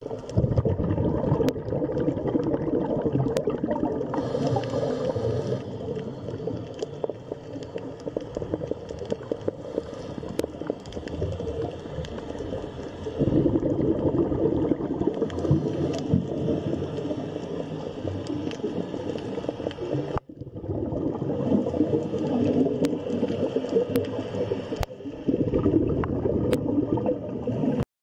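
Water bubbling and gurgling, with a steady crackle of small pops. It cuts out for a moment about twenty seconds in, then resumes.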